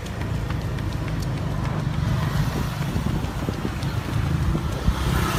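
Low, steady rumble of wind buffeting the microphone of a camera carried along at a run, with a few faint knocks from footfalls and handling.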